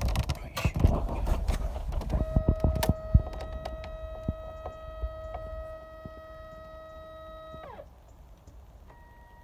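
Knocks and rumbling for about two seconds, then the electric motor of a Snipe automatic caravan satellite dish whines steadily as it raises the dish. The whine winds down with a falling pitch about eight seconds in, and a short faint tone follows near the end.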